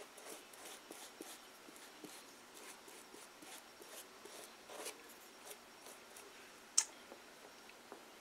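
Paintbrush brushing glue over paper towel on a cardboard wall: soft, irregular scratchy strokes, several a second. There is one sharp click near the end.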